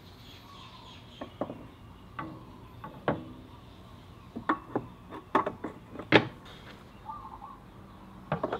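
Yamaha Zuma 125's steel exhaust pipe knocking and clinking against the scooter as it is handled and guided back onto the exhaust port studs: a string of irregular sharp knocks, the loudest about six seconds in.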